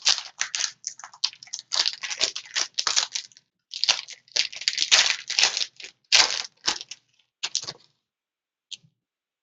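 Plastic wrapping on a sealed trading-card box being torn open and crinkled, in quick irregular crackles that stop about eight seconds in, followed by one small click.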